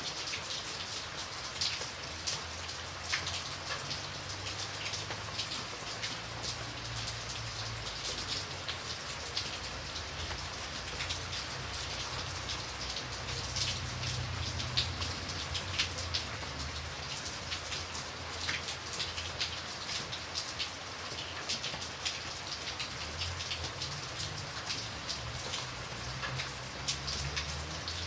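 Light rain falling steadily, with a continuous hiss and many individual drops ticking sharply on a surface.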